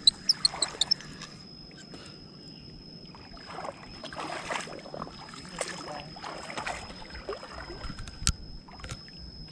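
Lake water sloshing and splashing in irregular bursts, loudest in the middle. A quick run of sharp, high clicks comes in the first second, and one sharp click comes near the end.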